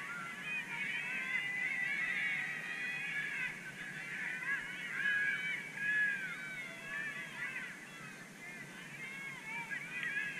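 A flock of birds calling: many short, overlapping calls that rise and fall in pitch, continuing without a break.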